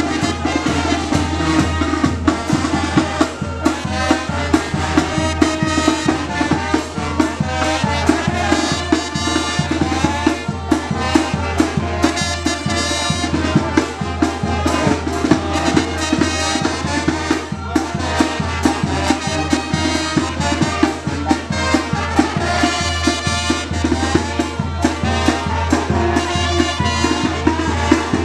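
Brass band playing, with drums and percussion.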